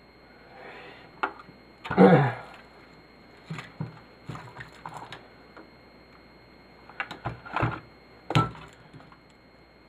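Knocks and clatter of turntable parts being handled and set down while the turntable is stripped for scrap. The loudest thunk comes about two seconds in, with bursts of smaller knocks after it.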